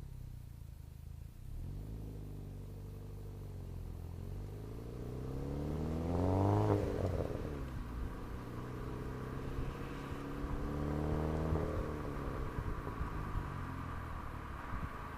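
Turbocharged 2.0-litre four-cylinder engine of a 2008 Chevrolet Cobalt SS with a turbo-back aftermarket exhaust, idling and revved twice: one big rev that climbs and falls back about six seconds in, then a smaller one near the end.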